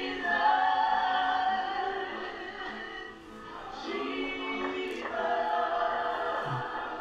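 A family of men and women singing together in harmony without instruments: two long, held phrases with a short breath between them about three seconds in.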